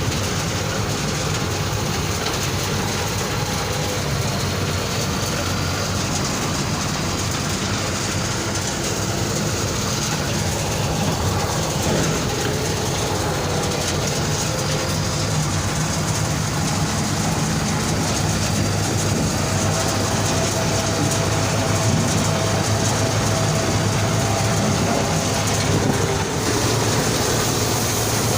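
Preet combine harvester running at work: a steady engine drone under the dense rattle of its cutting and threshing machinery.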